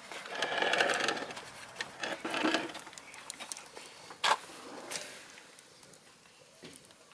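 Wood fire crackling in a wood-burning stove, with a few sharp pops and snaps from burning scrap lumber.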